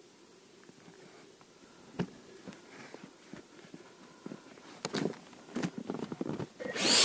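Scattered crunches and knocks of packed avalanche snow and ski gear as a skier, his skis wedged between broken slab blocks, shifts his weight and tries to work free; they come more often in the second half. Just before the end a loud, steady rushing noise sets in suddenly.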